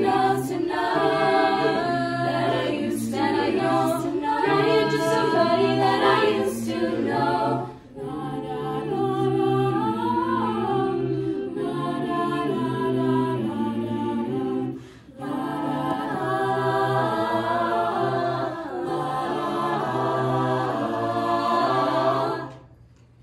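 Youth a cappella group of mixed voices singing in close harmony, with short sharp percussive clicks keeping a beat for the first seven seconds or so. The singing breaks off briefly twice and stops suddenly near the end as the song finishes.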